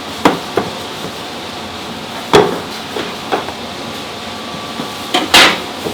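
About six sharp, irregularly spaced knocks of a kitchen tool on a wooden board during beef patty preparation, the loudest two near the middle and near the end, over a steady background hiss.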